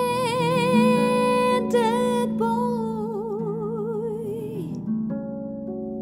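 A woman's voice singing long held notes with a wide vibrato over plucked harp chords. About three-quarters of the way through, the voice stops and the harp plays on alone with a few new notes.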